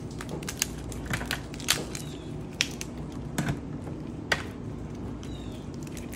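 Spiny lobster shell cracking and snapping as it is broken apart by hand: a string of irregular sharp cracks and clicks, over a steady low hum.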